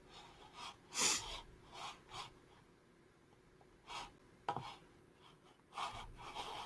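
Faint, scattered short rubbing sounds and one sharper click about four and a half seconds in, from hands working a computer mouse on a desk, with quiet stretches between.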